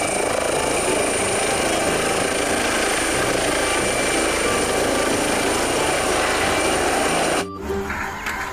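Air ambulance helicopter lifting off, its rotor and turbine engine running steadily under a thin, high, steady whine. The sound cuts off abruptly about seven and a half seconds in and gives way to music.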